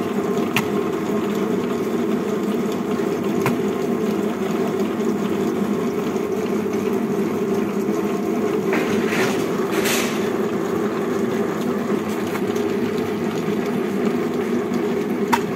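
Cow dung log making machine (screw extruder) running steadily with a constant drone as it presses out a square log of cow dung. A few faint clicks come through, and there is a brief rushing noise about nine to ten seconds in.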